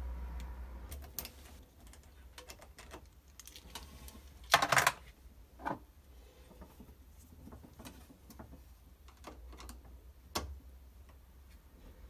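Scattered small clicks and rattles of a key and a small padlock being unlocked and taken off a plastic circuit breaker lock-off clip, with a louder clatter of clicks about four and a half seconds in and single clicks later.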